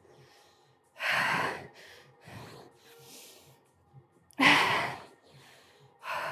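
A woman's hard, noisy breaths from the effort of explosive push-ups: two strong exhaled puffs, about a second in and again about four and a half seconds in, with fainter breaths between.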